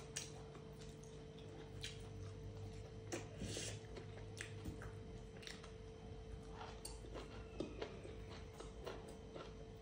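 Close-miked eating sounds: fingers squishing and mixing soft food on a metal plate, with scattered light clicks and chewing, over a faint steady hum.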